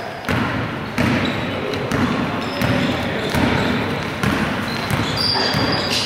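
A basketball being dribbled on a gym's wooden floor: a series of sharp, irregular bounces with players' footsteps, all echoing in the hall, and some voices underneath.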